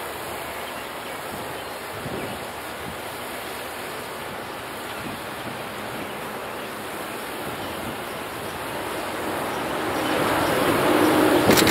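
Jet engines of a KC-135 tanker passing overhead, heard from the ground as a steady rushing noise that swells louder over the last few seconds as the aircraft comes closer.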